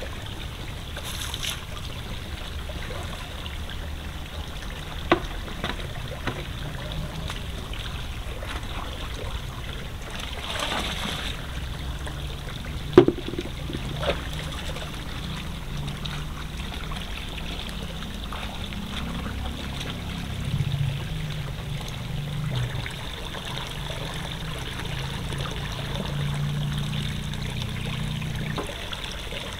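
Water gushing steadily from a pipe outlet and splashing into a pond, running through a mesh hand net as a catch of small shrimp and fish is rinsed under it. A few sharp knocks stand out, the loudest about halfway through.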